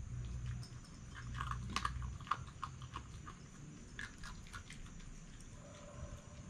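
Red fox crunching and chewing food from a dish: a flurry of crisp crunches about a second in, and a few more about four seconds in. A low steady hum in the background stops about two seconds in.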